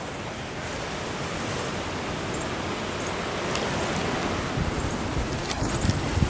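Steady rushing of wind that grows slowly louder, with low wind buffeting on the microphone near the end.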